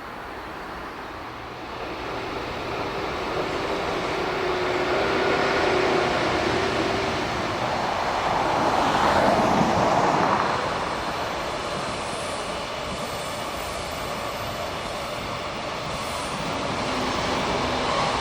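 Freight train hauled by an EF81 electric locomotive running past on the track. The sound builds, is loudest about nine to ten seconds in, then settles to a steady rolling rumble.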